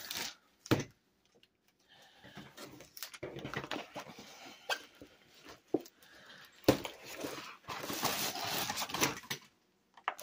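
Plastic-wrapped, rolled-up diamond painting canvas rustling and crinkling as it is handled. There are two spells of rustling and a few sharp knocks in between.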